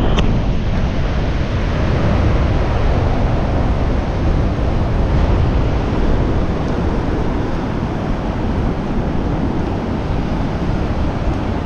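Pacific Ocean surf washing up a flat sand beach, a steady wash, with wind buffeting the microphone.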